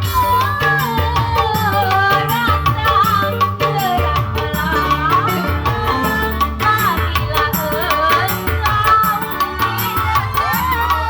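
Music: a singer's wavering, ornamented melody over steady hand-drum percussion and bass.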